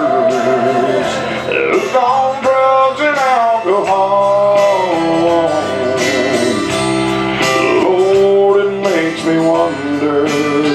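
A live gospel song: a man's voice sings drawn-out, sliding notes over steady instrumental accompaniment.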